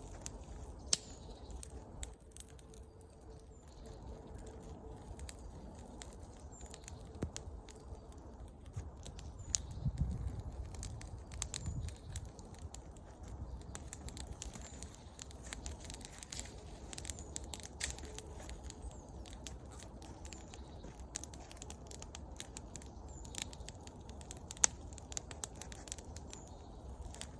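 A small campfire of damp wood, lit with vegetable oil, crackling with many scattered sharp snaps.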